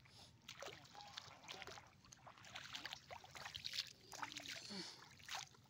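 Faint, irregular splashing and trickling of shallow pond water, with scattered small crackles.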